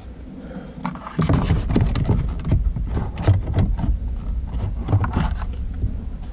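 Plastic interior trim being worked loose and handled inside a car: a dense, irregular run of clicks, knocks and rattles that starts about a second in and stops near the end.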